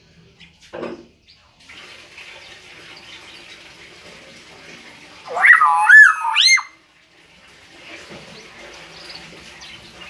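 Common hill myna giving one loud call of about a second and a half that slides up and down in pitch, over a steady hiss.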